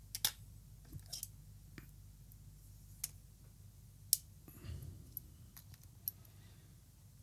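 Sharp small clicks and handling noises of plastic laptop parts, a few seconds apart, as the battery connector inside an opened laptop is worked loose by hand.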